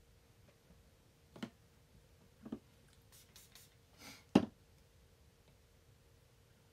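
A few short clicks and knocks of makeup brushes and a palette being handled and set down, the loudest a sharp knock about four seconds in, just after a cluster of quieter clicks. A faint steady hum underneath.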